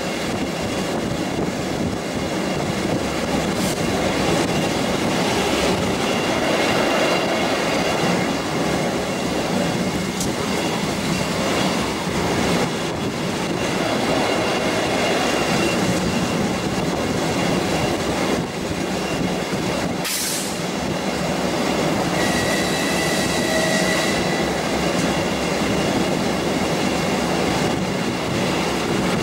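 Passenger train running along the track, heard from on board: a steady rumble of wheels on rail, with a short rush of noise about twenty seconds in and a brief high wheel squeal soon after.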